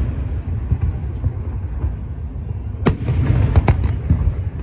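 Aerial fireworks exploding: a continuous low rumble of booms, then a sharp loud bang about three seconds in followed quickly by a couple of smaller cracks.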